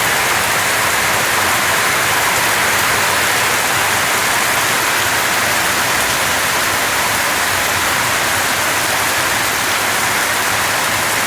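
Heavy rain pouring down steadily, an even, unbroken hiss of rain on surfaces.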